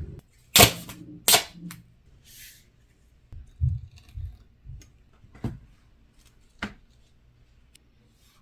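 Duct tape being worked by hand: two loud, sharp rips near the start, a short hissing pull, then softer knocks and a few clicks as the tape is handled and pressed down.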